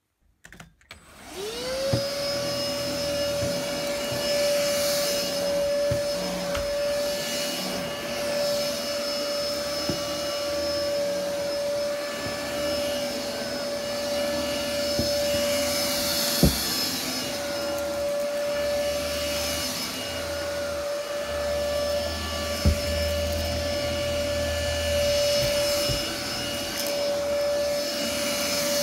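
Philips FC6823 cordless stick vacuum switched on about a second in, its motor rising in pitch to a steady high whine and running on. Two sharp knocks come partway through.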